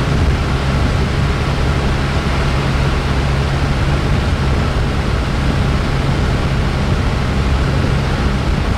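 Cessna 172's piston engine and propeller running with a steady drone, heard from inside the cockpit.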